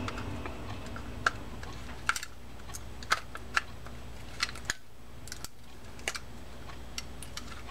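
Light, irregular clicks and taps of the Daiwa Sealine 47H level-wind reel's side plate and frame being handled and aligned by hand, with a steady low hum underneath.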